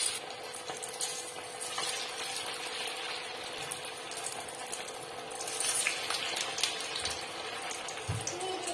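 Potato tikkis deep-frying in hot oil in an iron kadhai: a steady sizzling and crackling of bubbling oil, which swells for a moment a little past halfway.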